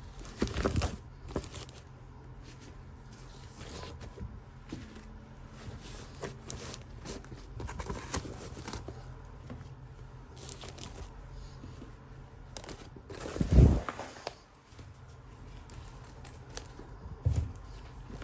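Hands handling small plastic toy pieces and packaging: irregular clicks, scrapes and rustles, with a loud thump about two-thirds of the way through and a smaller one near the end.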